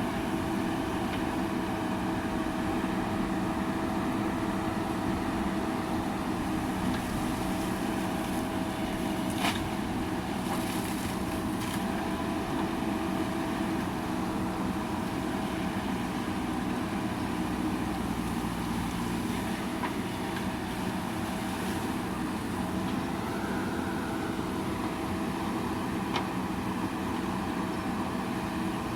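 JCB backhoe loader's diesel engine running steadily under work, with a steady whine over the engine hum and a single sharp knock about nine and a half seconds in.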